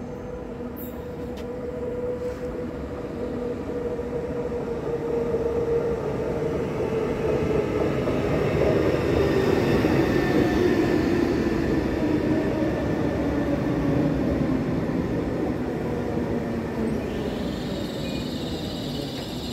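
Slovenske železnice Stadler FLIRT multiple unit running past the platform. Its rumble builds, and a motor whine falls steadily in pitch as the train slows. A higher squeal comes in near the end.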